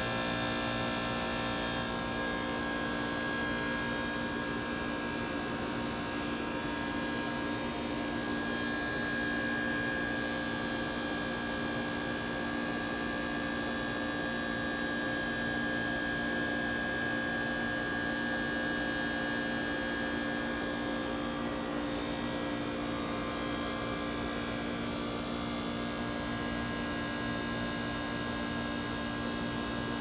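2001 Carrier heat pump outdoor unit running in defrost mode: the compressor gives a steady hum with a higher tone over it, and the condenser fan is stopped.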